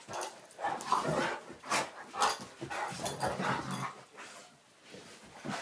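Two dogs play-fighting, their vocal noises coming in irregular short bursts and easing off about four seconds in, with one more burst near the end.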